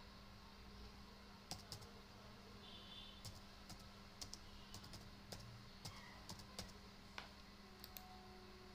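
Faint computer keyboard keystrokes: about a dozen separate, irregularly spaced clicks, over a steady low hum.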